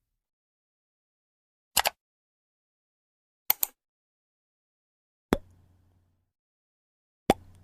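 Short cartoon-style sound effects spaced about two seconds apart: a quick run of two or three clicks, then a pair of clicks, then two short pops that fall in pitch.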